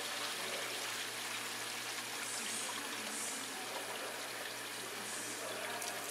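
Die-sinking EDM electrode sparking against the workpiece under dielectric fluid on a high-power roughing cut: a steady fizzing, with gas bubbling up through the fluid, over a faint low hum.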